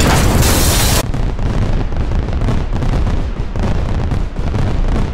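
A dramatic sound effect dubbed over the shocked reaction: a loud burst of hissing noise for about a second, dropping into a steady low rumble.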